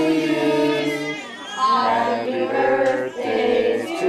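A group of voices singing together, holding long notes of about a second each.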